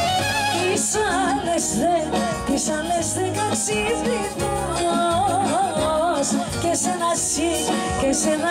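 Live Greek island folk band amplified through a PA: a quick, ornamented melody over lute and bass with a steady beat, and a woman singing.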